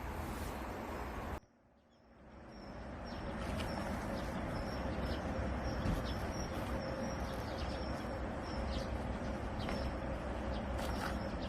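Birds chirping over a steady background hiss. The sound drops out abruptly about a second and a half in, then fades back up.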